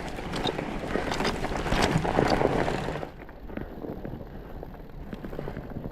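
Fat bike with chained tyres rolling over a snowy trail: a steady rolling rumble with irregular clicks and wind on the microphone. The sound is louder for about the first three seconds, then quieter and duller.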